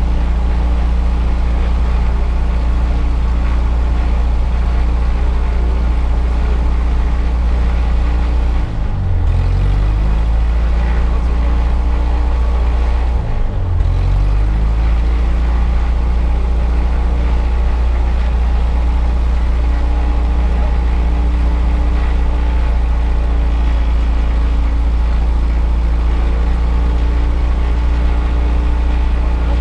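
Light aircraft's single piston engine and propeller running steadily, heard from inside the cabin. About nine and thirteen seconds in, the engine note drops briefly and then comes back up.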